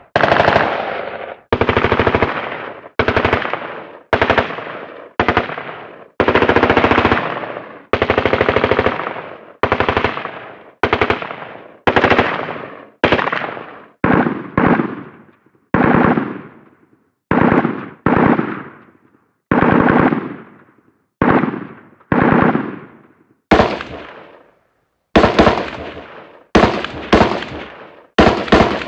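Sound-effect bursts of machine-gun fire, one after another, each a fast rattle of shots lasting under a second and fading out. The bursts come back to back, about one a second, and grow shorter and sharper near the end.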